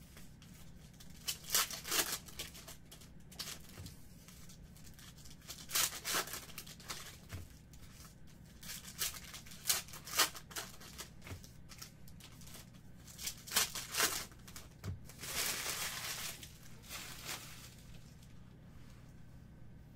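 Foil baseball-card pack wrappers being torn open and crinkled by hand, in sharp rips every few seconds and a longer crinkling stretch near the end.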